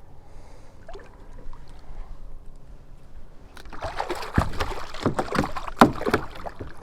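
Water splashing and sloshing against a kayak, with knocks on the hull. A burst of loud, irregular splashes starts about halfway through and dies down near the end.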